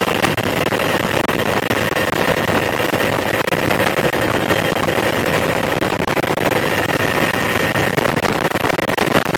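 Helicopter in flight heard from inside the cabin: steady engine and rotor noise with a faint steady whine running through it.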